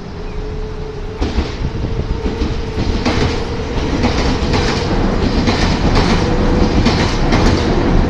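Nankai Koya Line stainless-steel commuter train pulling into the platform and slowing, with a steady humming tone and rumble. From about three seconds in its wheels clack over rail joints, roughly twice a second, growing louder as the cars pass close by.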